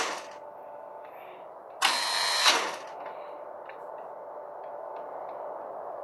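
Two short bursts of loud, buzzing mechanical noise, each about a second long. One is cutting off at the start and the other comes about two seconds in. Faint ticks follow.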